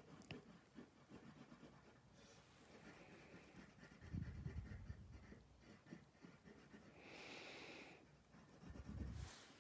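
Faint scratching of a coloured pencil shading on paper in quick back-and-forth strokes, with a soft low thump about four seconds in and again near the end.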